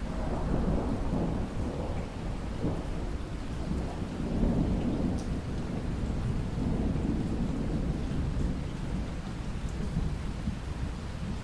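A long rumble of thunder over steady rainfall. The rumble sets in at the start, swells again about four seconds in, and eases off near the end.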